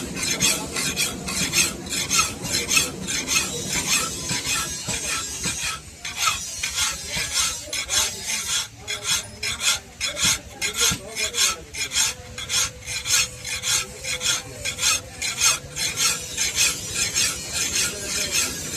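Steel knife blade being sharpened by hand, with repeated rasping strokes of metal against an abrasive, about two to three strokes a second.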